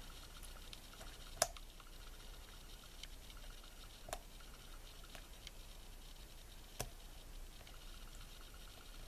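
Faint metal ticking and scraping of a lock pick working the pins inside a pin-tumbler lock under tension, with three sharper clicks a few seconds apart, as the picker feels for the last unset pin.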